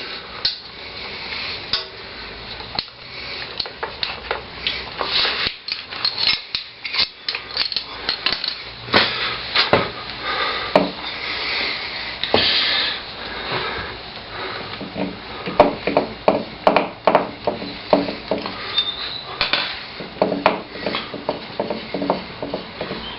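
Hand tools and metal motorcycle parts clinking and knocking irregularly, with rubbing and scraping between the knocks, as a front wheel and brake calipers are worked into place.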